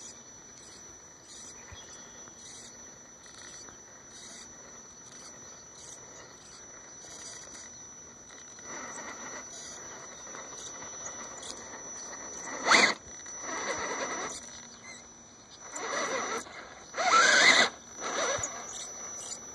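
Electric drivetrain of an RC rock crawler, a Tekin Pro4 3300kV brushless motor on a Mamba Max Pro ESC geared 11/54 on 3S, creeping through loose sand with a thin steady high whine. In the second half come about five short, louder bursts of throttle, whining and scraping as the tyres dig into the sand.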